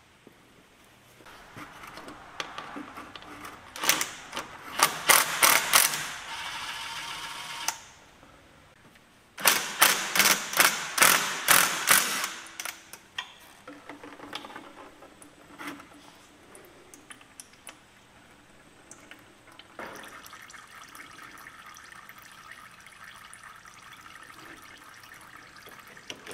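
Two runs of rapid, loud clicking, the second the loudest, then a steady trickle of fluid draining from a disconnected line into a bucket.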